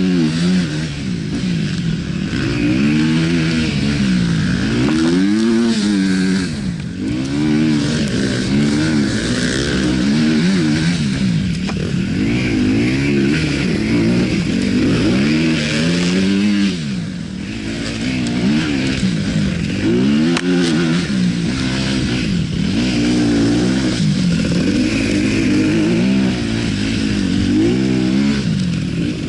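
2018 Yamaha WR250F's single-cylinder four-stroke engine through an Akrapovic exhaust, revving up and dropping back over and over as the throttle is opened and shut, every second or two.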